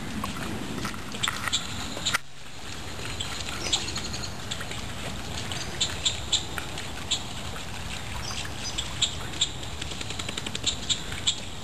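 Birds chirping in short, high calls over a steady low outdoor background, with scattered sharp clicks.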